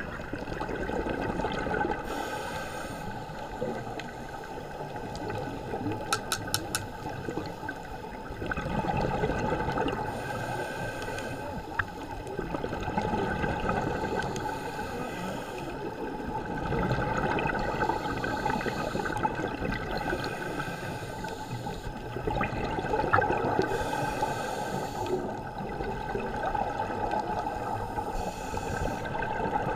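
Underwater sound of a scuba diver breathing: exhaled bubbles gurgling and rushing in surges every several seconds over a steady watery hiss, with a quick run of clicks about six seconds in.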